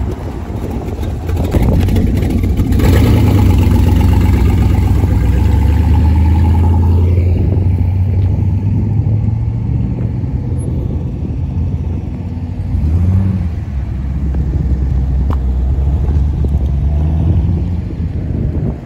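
Low-speed V8 sports-car engines rumbling as they drive past: a Shelby Cobra-style roadster, loudest a few seconds in, then C7 Corvettes creeping by. There is a short rise in revs about two-thirds of the way through.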